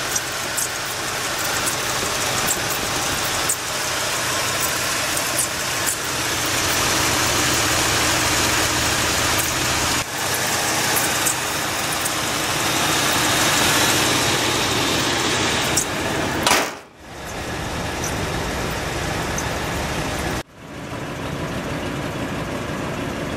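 1963 Buick Riviera's 401 cubic-inch nailhead V8 idling steadily. There are a few abrupt breaks, after which the same idle carries on.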